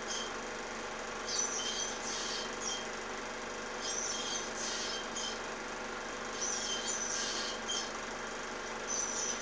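An osprey calls from its nest in groups of short, high-pitched whistled chirps, one group about every two and a half seconds. Under the calls runs a steady hiss and hum.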